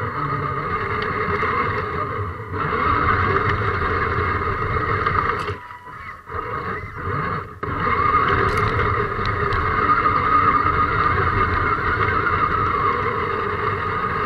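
Electric motor and gear drive of a scale RC crawler whining steadily as it drives, breaking off briefly a few times around the middle.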